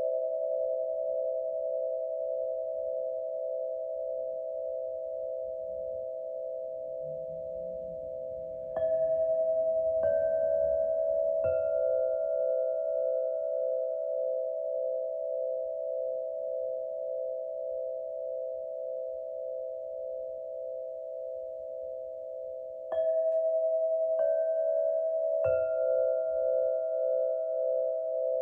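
Singing bowls struck one after another, three strikes from highest to lowest pitch, then the same three again about fourteen seconds later. Between the strikes the tones ring on steadily with a slow waver.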